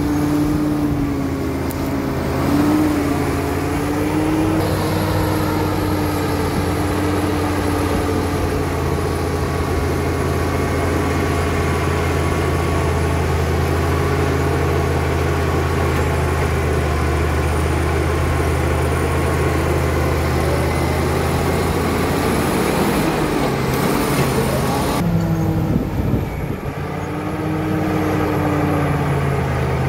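Caterpillar D7 crawler bulldozer's diesel engine running steadily under load as it pushes soil and rock with its blade. A pitched whine wavers over the engine note for the first several seconds and comes back near the end.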